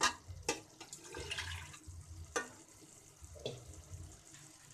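A steel spoon stirring thick chickpea masala in a metal pan, giving several sharp clinks and scrapes of metal on metal, over a faint frying sizzle.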